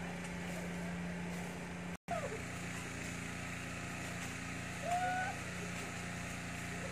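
An engine running steadily, a low even hum that carries on through a brief dropout about two seconds in. A short high rising sound comes about five seconds in.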